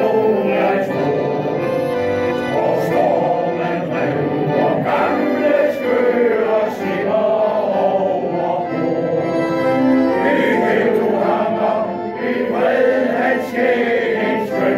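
A male choir singing.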